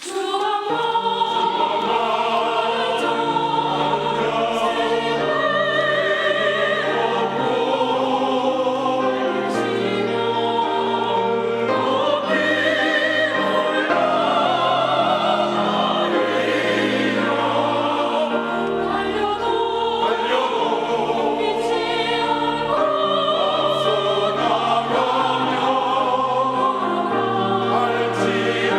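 Choir singing a sacred song, many voices holding wavering, sustained notes.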